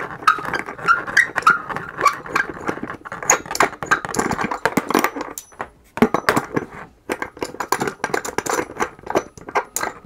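Scuba regulator first stage being unscrewed by hand from a DIN 232 cylinder valve and screwed back on: quick, irregular metallic clicks and rattles of the fitting and its hoses being handled.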